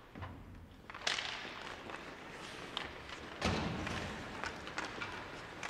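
Ice hockey play: two hard bangs, about a second in and again about two and a half seconds later, echoing in the rink, with smaller clicks and knocks of sticks and puck between and after.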